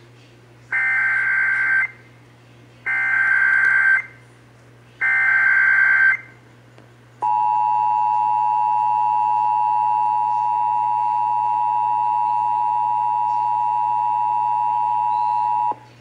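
Emergency Alert System activation tones from an AM broadcast, heard through a Midland weather radio's speaker: three roughly one-second bursts of warbling digital SAME header data, then the steady two-tone EAS attention signal for about eight seconds, which cuts off abruptly. They announce a severe thunderstorm warning.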